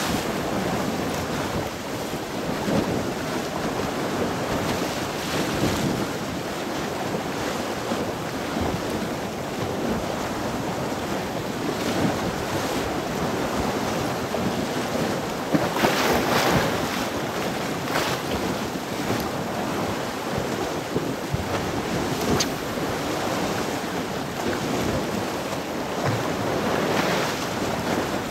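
Choppy sea waves washing against the shore, with wind buffeting the microphone. A few louder surges come about halfway through.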